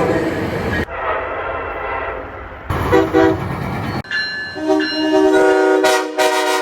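Train horn blasts from several spliced clips, each a chord of several steady notes sounding together. The last is a long chord blast that breaks into short toots near the end.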